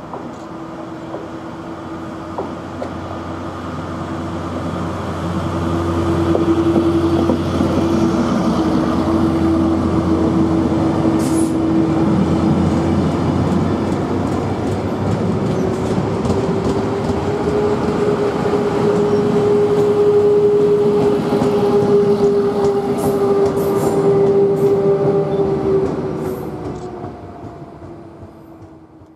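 GBRf Class 73 locomotive hauling the Network Rail test train past at close range. A steady droning note steps up in pitch about halfway through, over the rumble of the coaches' wheels on the rails, with a few sharp clicks from the wheels. The sound builds over the first few seconds and fades as the train draws away near the end.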